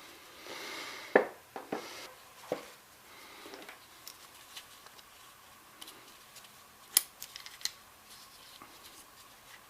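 Small metal parts of a Ramset 122MD powder-actuated tool clicking and clinking as it is taken apart by hand. A brief scrape comes first, then scattered sharp clicks, the loudest about a second in and again about seven seconds in.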